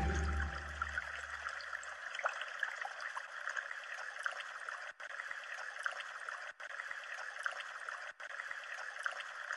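A steady rushing hiss, like running water, with faint crackles through it. It breaks off for a split second three times. The low tail of the preceding music dies away over the first second or so.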